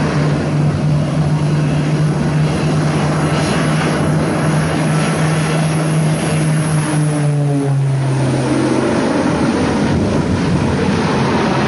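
Twin-engine propeller aircraft passing low and close, its engines and propellers running loud and steady. About seven to eight seconds in, the pitch drops as it goes past.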